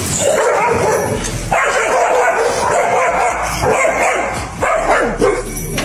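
A dog barking and yipping.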